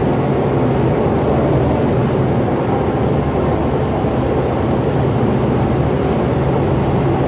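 Amphibious duck tour boat under way on the river: the engine's steady low drone with the rush of its wake, heard from on board.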